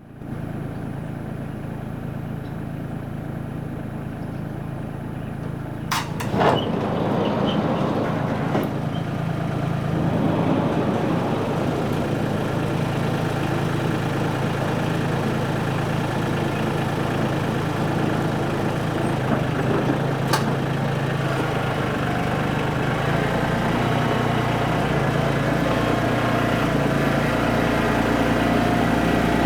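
A steady low mechanical hum like an idling engine, growing louder about six seconds in, with a few sharp clicks at about six, nine and twenty seconds.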